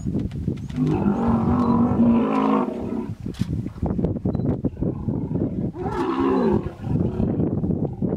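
Hippopotamuses calling aggressively in a stand-off: two long, deep bellows, about a second in and again about six seconds in, with pulsing low grunts between and after them. The calls come from a female hippo defending her young against an approaching hippo.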